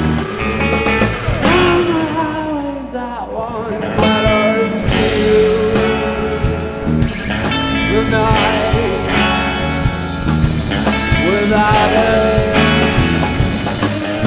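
Rock band playing live: two electric guitars, an electric bass and a drum kit.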